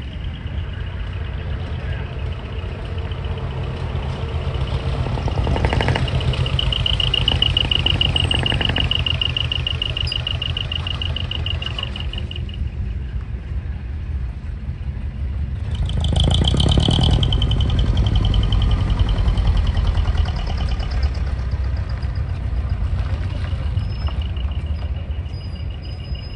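Vehicle engines running low and steady as customized vehicles drive slowly past, growing louder twice as they come close. A high warbling tone sounds for several seconds, then again briefly later.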